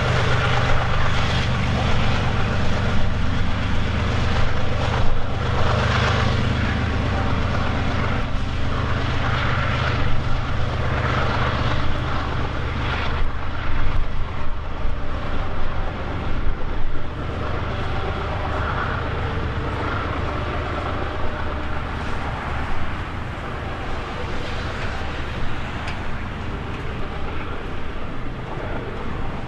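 Diesel locomotives of a double-stack container train working hard up a grade: their low engine drone is steady at first and fades after about the middle as they pull away. Meanwhile the stack cars roll past with a steady rumble of wheels on rail.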